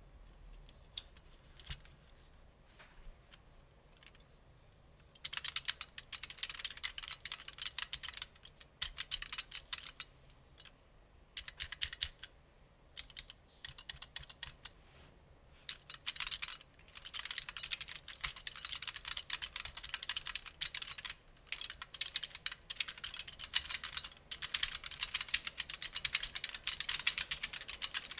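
Typing on a Smith Corona SL 460 keyboard module with leaf-spring key switches: a few single key clicks at first, then about five seconds in, fast bursts of typing broken by short pauses.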